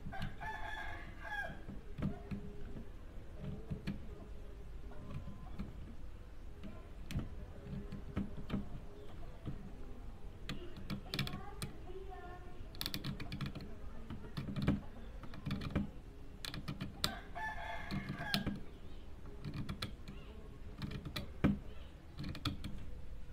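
A hand blade scraping and scratching at a copper trace on a circuit board in short, irregular strokes, cutting through the track. A rooster crows twice in the background, near the start and about three-quarters of the way through.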